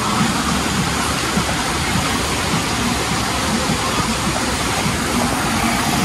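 River water rushing steadily.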